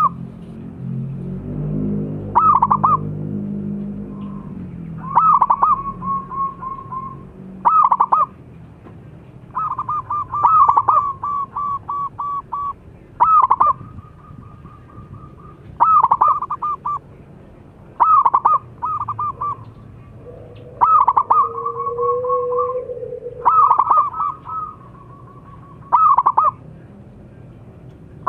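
Zebra dove (perkutut) cooing: a phrase roughly every two and a half seconds, each a strong opening coo followed by a quick stutter of shorter coos.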